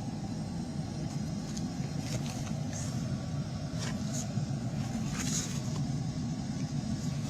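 Steady low rumble of an attic HVAC air handler's blower running, pushing air through the ducts, with a few faint rustles and ticks over it.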